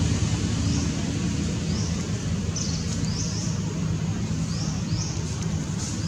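Steady low hum of an engine running, with short high chirps that rise in pitch, repeating about once or twice a second.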